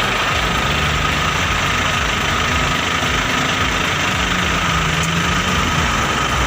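Engine of a large log-handling forklift running steadily, with a steady high whine over it.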